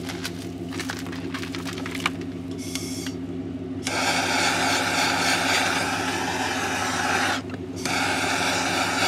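Handheld gas torch lit about four seconds in after some clicking and handling, its flame hissing steadily; it cuts out for a moment near the end and comes back. The flame is thawing a frozen ratchet strap on a trailer.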